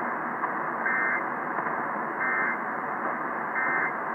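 Emergency Alert System end-of-message code: three short bursts of the digital data warble, about a second and a half apart, over steady radio hiss. They mark the end of the alert.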